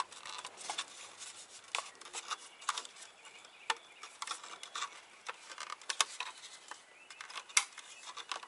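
Irregular small clicks and rubbing from handling a boost gauge and its mounting bracket as they are worked into a steering column gauge pod, with a sharper click about six seconds in and a louder one near the end.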